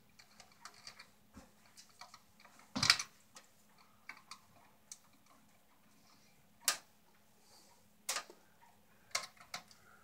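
Scattered small clicks and rustles of hands working the wiring and plastic connector of an old smoke alarm in a ceiling electrical box, disconnecting it. The sharpest clicks come about three, seven and eight seconds in, over a faint steady hum.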